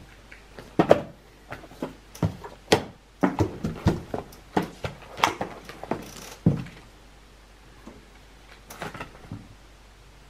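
Box packaging handled on a table: a quick run of knocks, taps and rustles for the first six seconds or so, then a few faint ones near the end.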